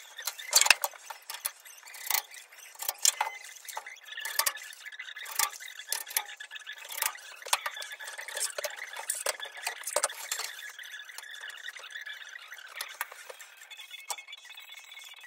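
Bar clamps and a wooden straightedge being handled and clamped down on a table-saw top: irregular clicks, clacks and knocks, the loudest about a second in.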